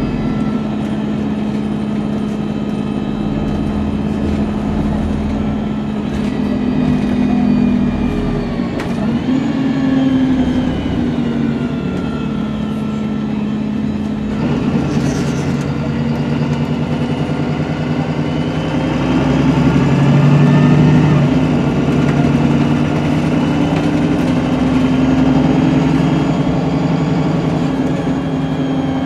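Cummins diesel engine and Voith four-speed automatic drivetrain of a MAN 18.240LF single-deck bus, heard from inside the passenger cabin while under way. The engine note rises and falls, with an abrupt change about halfway through and higher whines sliding up and down before it.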